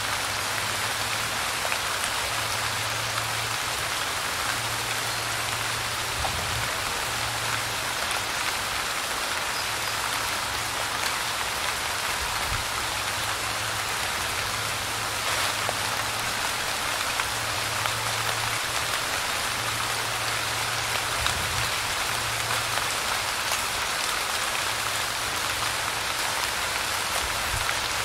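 Steady light rain: an even hiss of falling drops with scattered faint patter. A low hum comes and goes underneath.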